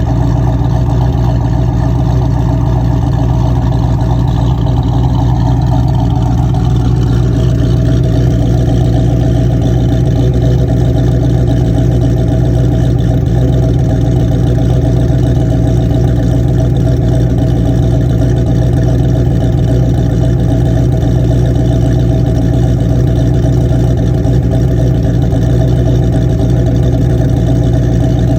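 Freshly rebuilt 347 cubic-inch stroker small-block Ford V8 in a 1987 Mustang, idling steadily and loud.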